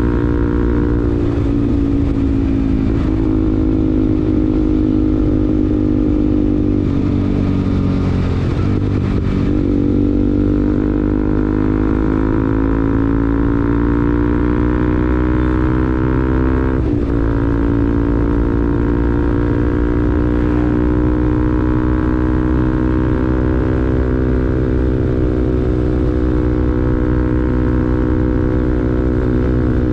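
Bajaj Pulsar NS200's 199.5cc single-cylinder engine running through an R9 aftermarket exhaust while riding, with a bassy note. The pitch dips and climbs back around eight seconds in, then drops sharply at about seventeen seconds and rises slowly again.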